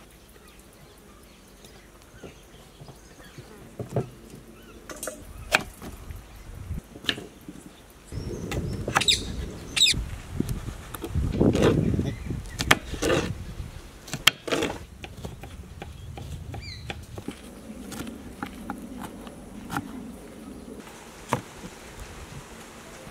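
Knife cutting bell peppers and tomatoes by hand: irregular short clicks and taps of the blade through the vegetables and on a wooden chopping board, with a low rumble for a few seconds in the middle.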